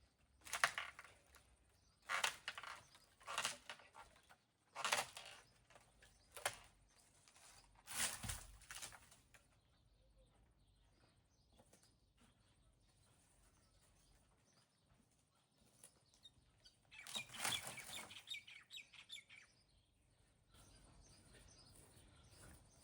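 Dry branches of a cut dead tree rustling and swishing as the fallen branch is pushed aside, in a run of short bursts about every second or so, then a quiet stretch and another burst of rustling near the end.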